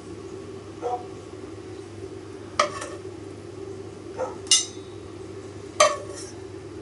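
Dishes and utensils clinking as they are handled at a kitchen sink: about five short, sharp clinks, the loudest about halfway through and again near the end, over a steady low hum.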